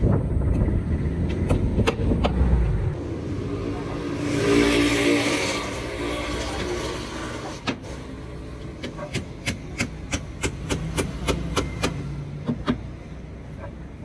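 A vehicle passing on the street, then a quick run of sharp hammer blows on timber formwork, about three to four a second, in the second half.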